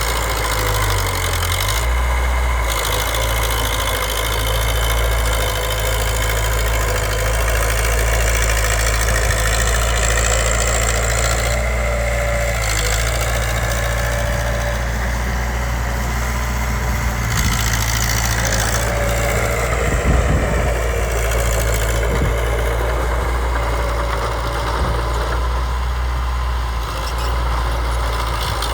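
Diesel engine of a Komatsu D20P small bulldozer running steadily, with a brief knock about twenty seconds in.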